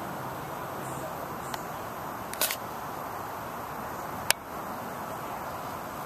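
Sharp clicks from a handheld camera being handled: a light one about a second and a half in, a louder double click about two and a half seconds in, and another a little after four seconds. A steady outdoor hiss runs underneath.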